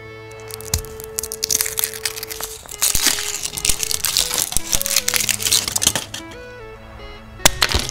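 Wrapper of a chocolate surprise egg crinkling as it is handled and peeled off, with a sharp crack near the end, over background music.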